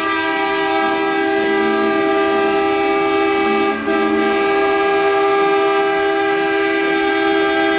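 Several truck air horns blaring together in one long chord, with a brief dip a little under four seconds in.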